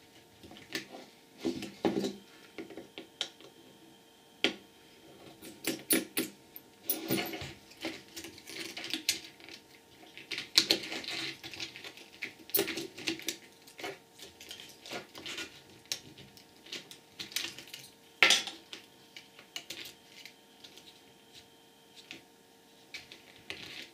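Irregular small clicks, taps and clinks of a precision screwdriver and tiny screws against a handheld computer's opened casing as it is taken apart.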